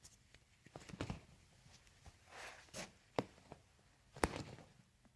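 Toe joints cracking under a chiropractic adjustment: a few sharp pops, a second or two apart, with soft rustling of hands and skin between them.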